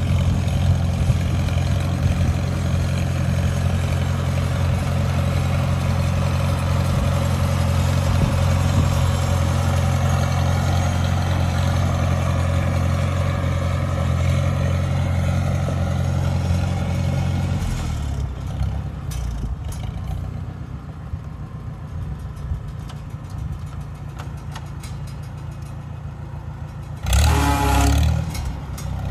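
1957 Farmall 350 tractor's four-cylinder engine running steadily under way, then easing back to a lower, quieter speed a little past halfway. Near the end it revs up loudly with a rising pitch.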